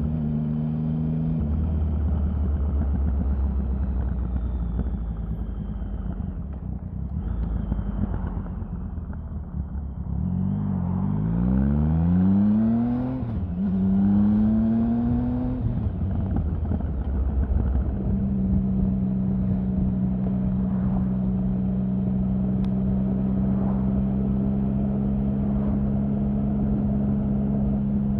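Triumph Sprint 1050's three-cylinder engine running at steady revs, rising in pitch twice around the middle, then settling back to a steady note.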